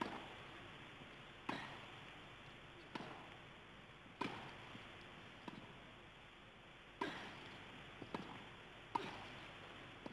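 Tennis rally on a grass court: the ball is struck by rackets roughly every second and a half, sharp pops with softer bounces between, over a faint steady hiss.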